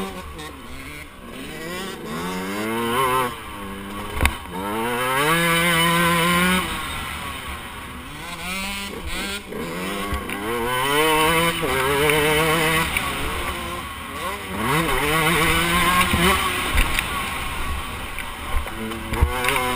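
KTM 125 two-stroke motocross bike engine ridden hard, the revs climbing and falling again and again as the rider accelerates, shifts and backs off through the turns. A few short knocks from the bike hitting bumps.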